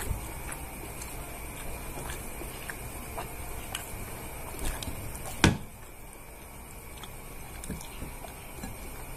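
A person eating with bare hands: chewing, with small clicks and taps as fingers pick food off a plate, and one sharp knock about five and a half seconds in.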